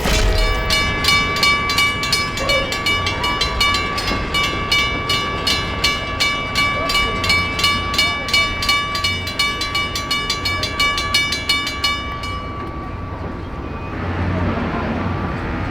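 Railroad crossing warning bell ringing rapidly at about four strokes a second, over a low rumble. The bell stops about twelve seconds in.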